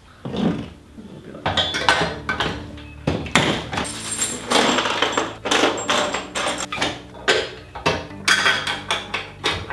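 Metal parts and hardware of a chicken plucker clinking and knocking on a table as they are sorted and handled during assembly, in a run of irregular sharp knocks.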